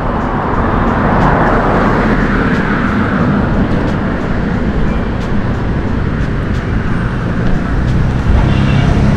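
Road traffic noise, with a motor vehicle passing close by: engine and tyre noise that swells about a second in and eases off over the next few seconds over a steady low rumble.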